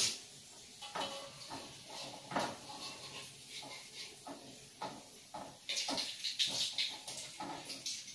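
Spatula stirring and scraping in a wok of sliced shallots frying in oil: a run of short knocks and scrapes, starting with a sharp knock and turning hissier about six seconds in.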